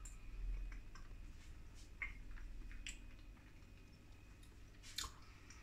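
Faint chewing of a forkful of lamb hot pot, with a few small wet mouth clicks.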